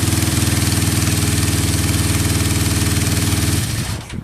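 Honda CB550's air-cooled inline-four engine idling steadily, with no abnormal noises, then shut off about three and a half seconds in.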